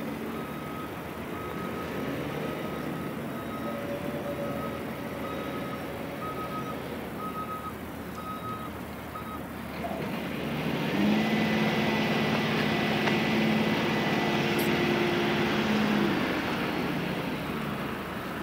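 Caterpillar articulated dump truck reversing, its backup alarm beeping about once a second over the diesel engine. The beeping stops about nine seconds in; the engine then revs up and holds steady for about five seconds while the hydraulic hoist tips the loaded dump body.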